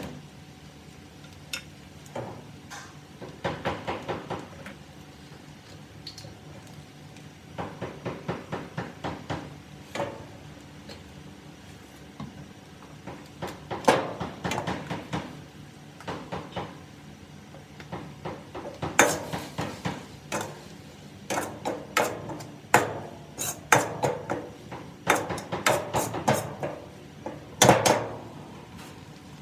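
A metal spatula scraping and clanking against a wok in bursts of quick strokes, with a steady low hum underneath.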